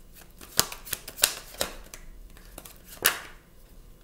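Tarot cards being shuffled and handled, with a handful of sharp card snaps and slaps, the loudest about three seconds in.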